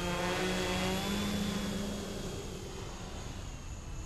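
Quadcopter's brushless motors and 10-inch propellers buzzing in flight: a steady pitched drone with many overtones that fades after about two seconds.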